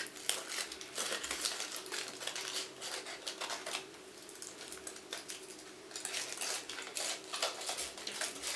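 Foil wrapper of a large Kinder Surprise chocolate egg crinkling and crackling as it is peeled off by hand, with a quieter stretch around the middle.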